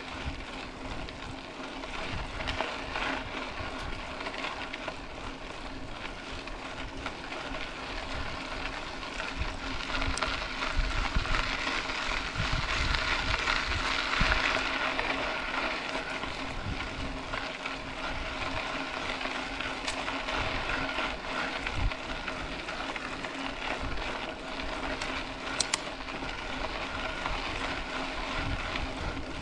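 Mountain bike rolling along a dirt road: a steady gritty hiss of tyres on gravel, with wind buffeting the microphone and occasional clicks and rattles, louder for a few seconds midway.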